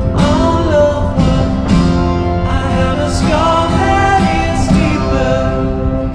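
Pop song with singing over guitar and a steady band backing.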